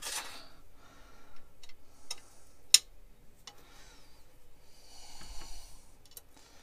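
Light metal clicks and taps as small parts are handled and a lathe headstock guard is set in place, with one sharp click about three seconds in. Soft breathing between the clicks.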